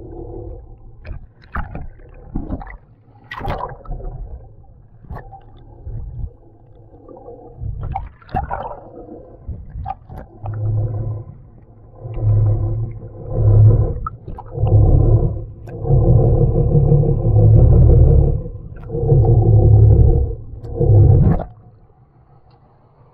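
Muffled underwater sound from a camera held below the surface: low rumbling and knocks of water moving over the housing, surging in heavy pulses about once a second in the second half. It cuts off suddenly near the end as the camera comes out of the water.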